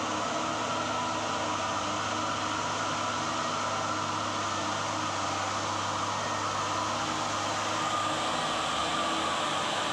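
Diesel engine of a loaded Mitsubishi Fuso dump truck pulling steadily up a gravel incline, holding even revs, a little louder as it draws close about eight seconds in.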